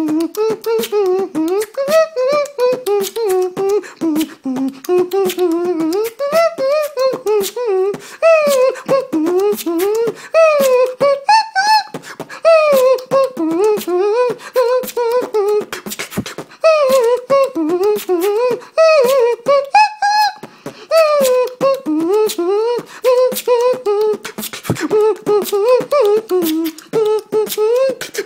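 Solo human beatboxing: a steady stream of sharp mouth-made kicks, snares and clicks with a wordless vocal melody gliding up and down over them.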